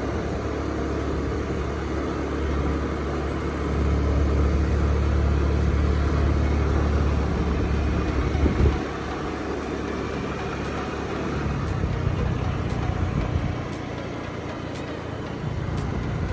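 Motorcycle engine running while riding, a steady low hum with road and wind noise, its pitch and loudness shifting a few times.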